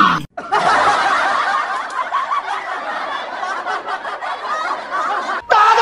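An audience laughing, many voices at once, like a laugh track. It starts a moment in, holds steady for about five seconds and cuts off suddenly near the end.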